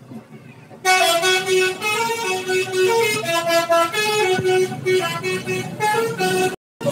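Bus 'telolet basuri' multi-tone air horn playing a tune of stepped notes, loud, starting about a second in and breaking off abruptly just before the end.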